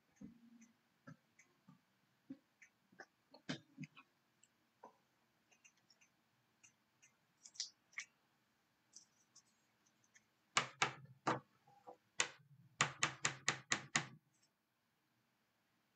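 Trading cards being handled on a table: scattered light taps and clicks, then a quick run of sharper clicks and knocks for a few seconds near the end.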